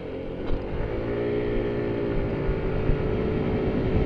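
Kymco Like 200i scooter's single-cylinder engine pulling away from a stop. Its note rises, then holds steady as the twist-and-go automatic transmission takes up speed, with wind noise building on the helmet microphone.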